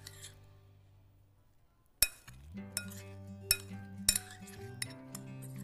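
Metal spoon clinking against a ceramic bowl while stirring chopped fruit, several sharp clinks with the loudest about two seconds in. Background music fades out near the start and comes back in with that clink.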